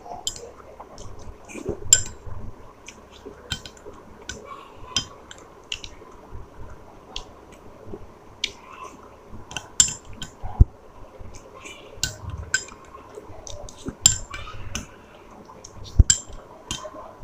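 A person eating payesh (rice pudding) close to the microphone: irregular light clinks and clicks of tableware with soft wet mouth sounds.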